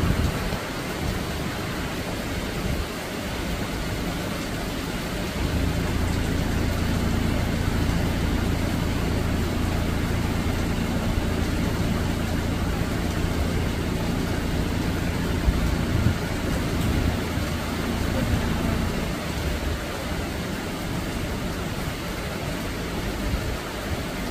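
Steady rain falling on dense leafy trees, with a low engine hum joining it about five seconds in and fading out near nineteen seconds.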